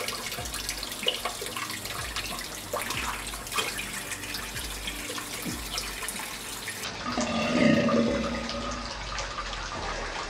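Kitchen tap running steadily into the sink while water is slurped from cupped hands. About seven seconds in, a loud voiced sound from the man lasts about a second and a half.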